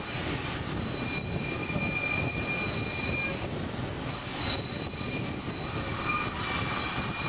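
St Kitts Scenic Railway train running, heard from its open upper deck: a steady rumble of the cars on the track, with thin, high squeals from the wheels on the rails that come and go.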